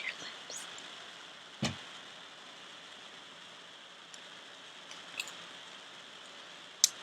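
Fireplace crackling: a steady soft hiss with a few sharp pops, the loudest about two seconds in and another near the end.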